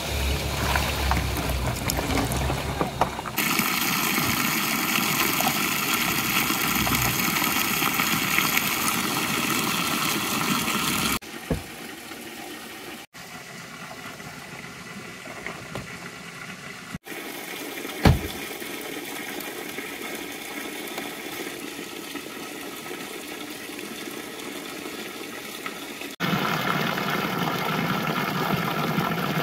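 Running water, a rushing mountain river and water falling and splashing, in several clips joined by abrupt cuts: loud at first, quieter through the middle, loud again near the end. A single sharp knock about two-thirds of the way through.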